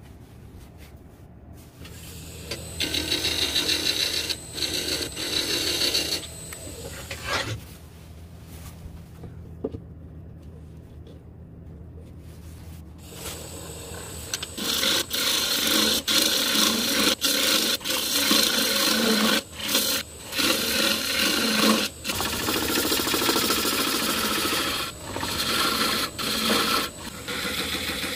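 Wood lathe running while a turning tool cuts into the foot of a spinning juniper vase. The cutting comes in stretches with brief breaks: a shorter stretch early on, then a louder, longer one through the second half.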